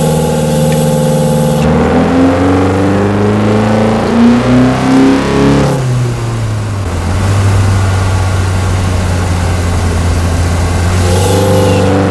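2022 Honda Civic Sport's 2.0-litre four-cylinder engine breathing through an AEM short ram intake, rising in pitch under acceleration for about six seconds. The pitch then drops sharply and holds at a steady lower drone, and near the end it starts rising again.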